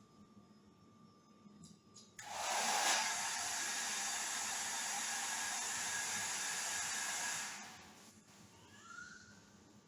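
Hair dryer switched on about two seconds in, blowing with a steady hiss for about five seconds, then switched off and winding down.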